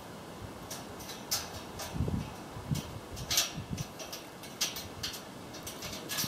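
A dog climbing a galvanised wire-mesh gate: irregular clicks and rattles as her claws catch on the metal wire, with a few dull thumps about two to four seconds in.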